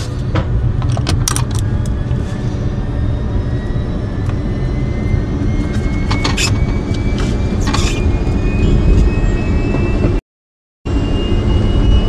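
Antonov An-26 turbine engine spooling up, heard from the cockpit: a heavy, steady rumble with a whine that rises slowly in pitch, typical of an engine start, with a few sharp switch-like clicks. The sound drops out for about half a second near the end.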